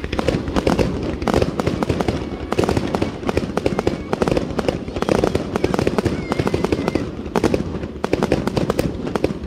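A ground-launched fireworks barrage firing: rapid, unbroken popping and crackling as shot after shot launches and bursts into crackling stars.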